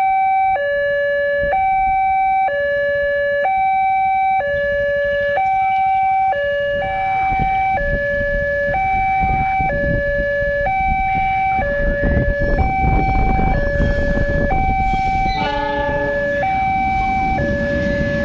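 Railroad crossing's electronic warning alarm alternating between two tones, about one change a second. Under it a diesel-hauled tank-car train approaches and passes, its rumble growing from about seven seconds in. About two-thirds of the way through, the locomotive gives a short horn blast.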